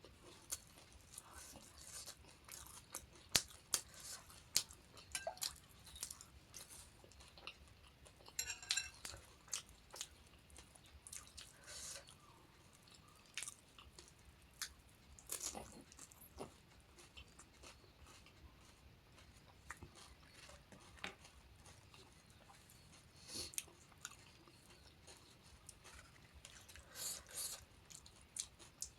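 Close-up chewing and crunching of panipuri, the crisp puri shells cracking in the mouth. Sharp crunches and mouth clicks come at irregular intervals between quieter stretches.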